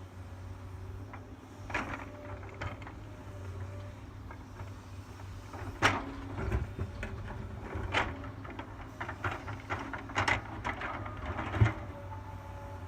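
Backhoe's diesel engine running with a steady low hum, with a series of sharp knocks and clanks about every two seconds, the loudest near the middle and near the end.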